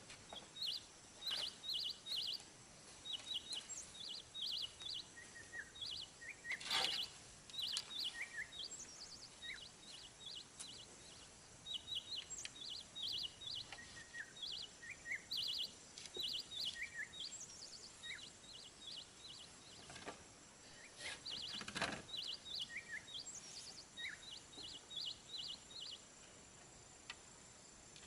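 Birds chirping in quick runs of short, high, repeated notes, with a few sharp knocks now and then, the loudest about 7 and 22 seconds in.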